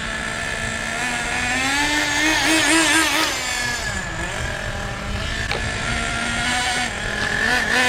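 Team Associated Nitro TC3 RC car's small two-stroke nitro engine running under throttle: its pitch rises about two seconds in, wavers quickly with short throttle blips, drops back around four seconds, holds steady, then starts climbing again near the end.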